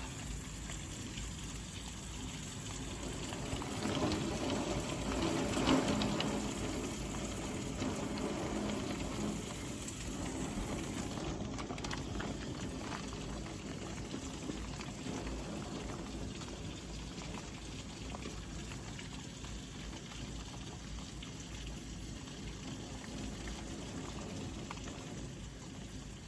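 Heavy rain falling steadily, with a louder swell a few seconds in.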